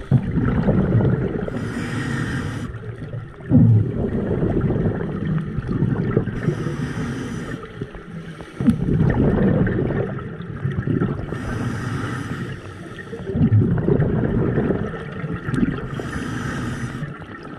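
Scuba diver breathing through a regulator underwater: a short hiss on each inhalation, then a gurgling burst of exhaled bubbles, about four breaths roughly five seconds apart.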